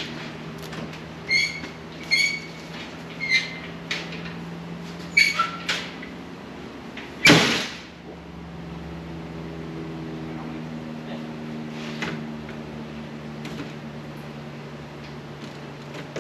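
A door squeaking in short high notes several times, then shutting with one loud rushing thump about seven seconds in. A machine hums steadily underneath.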